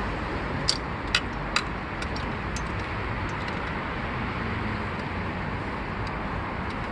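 Three sharp metal clicks in quick succession about a second in, then a few lighter ticks, from hands working the anti-theft cable lock of a hitch-mounted bike rack, over steady background noise.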